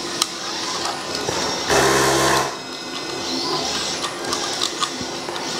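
Plastic EL wire scraping and rubbing as it is pushed through a slot in a 3D-printed PLA model, with small clicks. About two seconds in there is a brief buzz lasting under a second.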